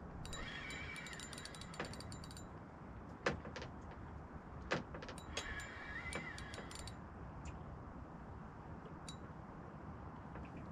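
Spinning reel being wound in two bursts of about two seconds each: a fast clicking whir that wavers in pitch with the cranking. Between the bursts come two sharp knocks, the loudest sounds here.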